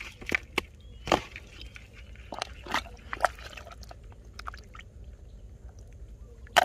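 Hands working in wet paddy mud at a field crab's burrow: irregular wet squelches with sharp clicks and crackles, a cluster of them about two and a half to three and a half seconds in.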